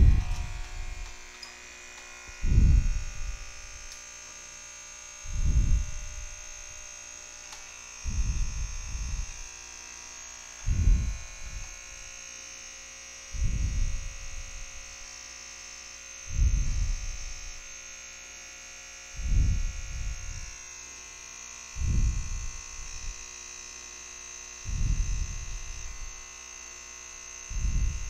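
Capsule coffee machine brewing: a steady electric hum and whine, with a low throb repeating about every three seconds.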